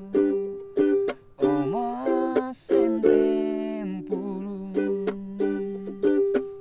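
Background music: plucked string notes that start sharply and fade, playing a melody over a held low note.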